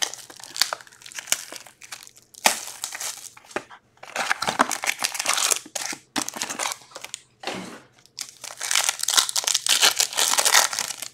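Foil hockey card pack wrappers crinkling in repeated bursts as packs are handled and one is torn open.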